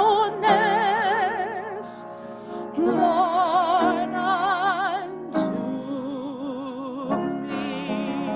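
A solo voice singing in a classical style with strong vibrato, holding long notes, over instrumental accompaniment.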